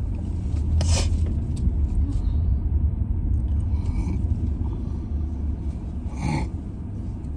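Car cabin road rumble while driving, a steady low drone, with a brief sharp sound about a second in and another shorter one near the end.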